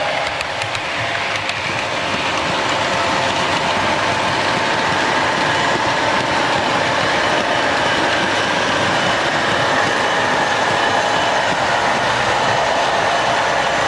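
Model trains running on a model railway layout: a steady rolling clatter of wheels on track with a constant motor hum, growing a little louder over the first few seconds as a Class 47 locomotive passes hauling a rake of vans.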